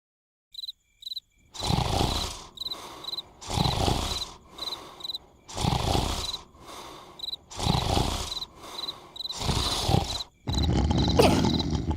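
Cartoon snoring in a steady rhythm: a loud rasping snore about every two seconds with softer breaths between, over steadily chirping crickets. Near the end the snoring runs into a continuous loud rasp.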